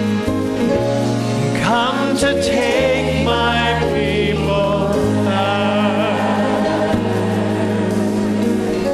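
Church worship team singing a gospel song together in harmony, with steady instrumental backing holding long bass notes.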